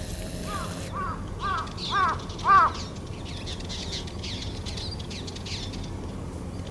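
A bird gives five short calls about half a second apart, each louder than the last. Faint, thin, high twitters of small birds follow.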